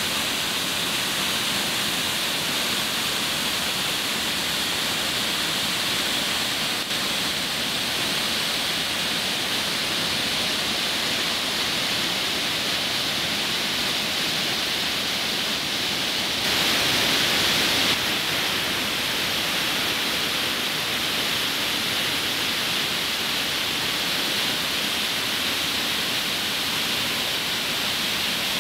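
Waterfall and whitewater rapids rushing over boulders, a steady, even rush of water. It grows louder for about a second and a half two-thirds of the way through.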